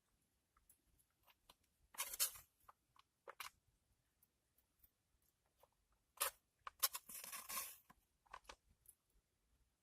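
Quiet eating sounds as fried rice is eaten: scattered soft clicks, with a louder scratchy burst about two seconds in and a longer one around six to eight seconds.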